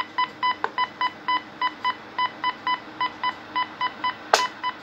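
Super Jopix 2000 CB radio's receiver reproducing an injected test tone as a beeping tone of about 1 kHz, roughly four to five short beeps a second over faint hiss, while the signal level is turned down for a sensitivity test. A sharp click sounds near the end.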